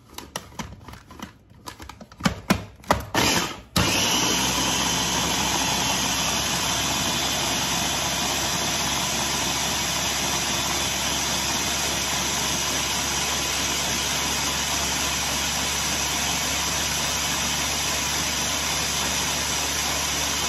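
A few clicks and knocks as the motor head of an electric mini food chopper is set onto its plastic bowl. About four seconds in, the chopper's motor starts and runs steadily, held down by hand, blending garlic, herbs, oil and vinegar into a sauce.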